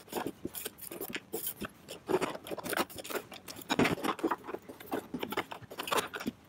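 Rapid jumble of clicks, taps and scrapes from hand tools working a plastic power-shovel housing, a putty knife prying at the seam and screwdrivers turning out screws. It is a time-lapse played at 20x speed, so the sounds run together.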